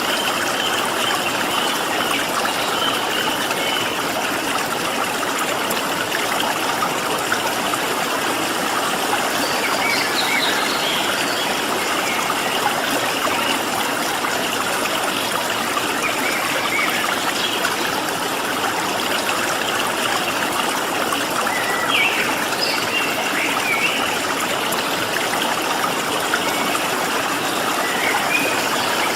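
Stream water flowing steadily, with a few faint short bird chirps around ten seconds in and again after twenty seconds.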